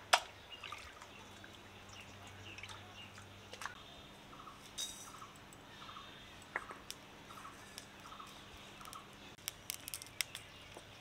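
Scattered light clicks and knocks from handling raw chicken pieces while washing them in a bowl. In the middle a bird calls in a run of short, evenly spaced notes, about two a second.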